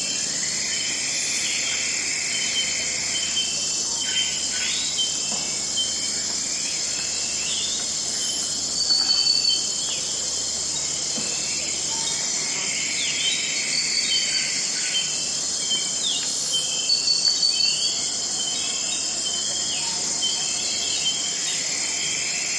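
Dense, steady chorus of rainforest insects, crickets among them, at dawn, with scattered short bird calls sliding in pitch over it; the calls get briefly louder twice.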